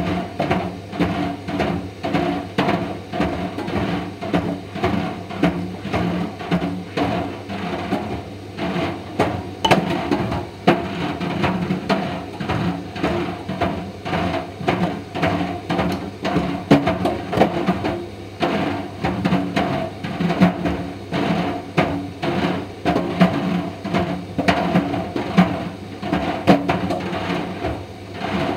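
Indesit IDV 65 tumble dryer running with a steady motor and drum hum. Mister Steamy plastic dryer balls knock irregularly against the turning drum, several times a second.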